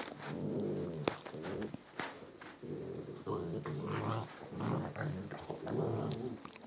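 Adult Samoyed dog vocalising at close range: three long, low-pitched vocalisations follow one another with short breaks. Two sharp clicks come about one and two seconds in.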